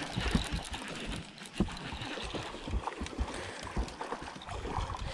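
Water splashing and lapping against a fishing boat's hull, with irregular low knocks, the sharpest about a second and a half in.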